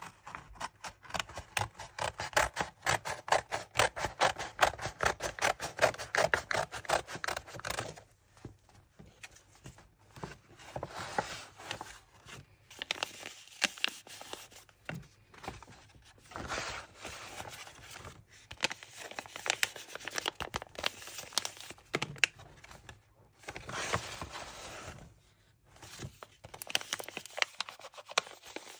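Scissors cutting paper in a quick, even run of snips for about the first eight seconds. After that, paper blind-bag pouches are handled, rubbed and torn open in irregular rustling bursts.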